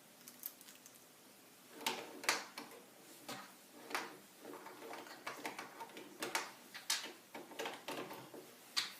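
Plastic Lego bricks clicking and knocking together as they are handled and pressed into place: a string of irregular sharp clicks.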